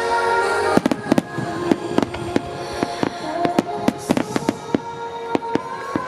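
Fireworks shells bursting: a rapid, irregular run of sharp bangs and cracks starting about a second in, over music playing along with the display.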